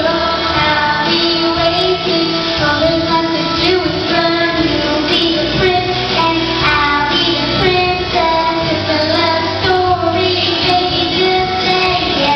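A young girl singing a song into a microphone over instrumental backing music.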